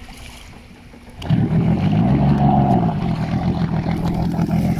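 Jet ski engine cutting in suddenly about a second in and running. Its pitch rises briefly as it revs, then holds steady as the craft pulls away at low speed.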